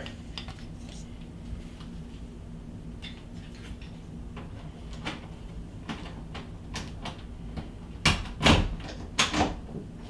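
Metal doorknob hardware being fitted into an interior door: light scattered clicks as the knob's spindle and latch parts are worked into place, then a few louder knocks and clunks near the end as the knob seats against the door.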